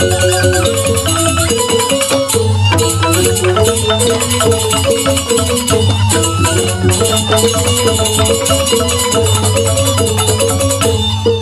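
Balinese joged bumbung gamelan playing a tabuh petegak, the instrumental opening piece: bamboo grantang xylophones in quick, repeating interlocking patterns with a suling bamboo flute, over a constant low note.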